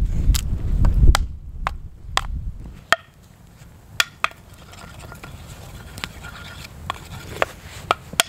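Small hatchet chopping firewood held in the hand into kindling: irregular sharp wooden knocks, about a dozen, some in quick pairs. A low rumble fills about the first second.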